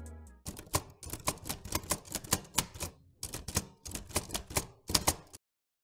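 Typewriter sound effect: a run of quick, sharp key strikes, about five a second, with a short break about three seconds in.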